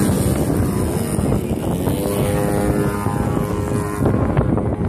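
Engine and propeller of a radio-controlled model aerobatic airplane in flight, a steady drone whose pitch slides slowly down in the second half.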